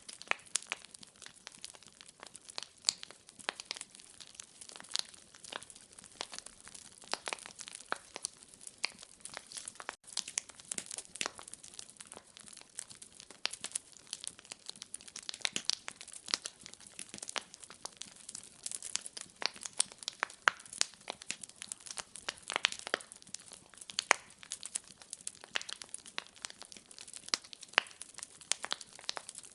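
Wood fire crackling in a fireplace: many small, irregular pops and snaps over a faint hiss.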